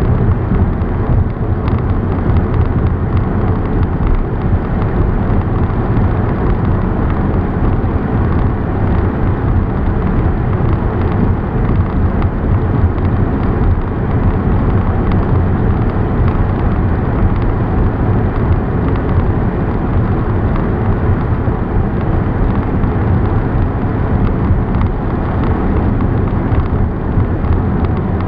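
Steady road and wind noise of a car being driven, a loud even rumble strongest in the low range.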